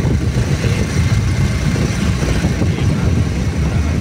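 A moving road vehicle: a steady, loud low rumble of engine and road noise, with wind buffeting the microphone.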